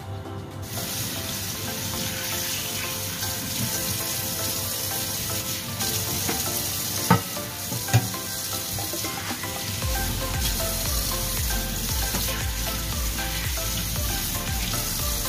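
Kitchen tap running in a steady stream into a stainless steel sink while a squid is rinsed and rubbed under it. Two sharp knocks about halfway through, under a second apart.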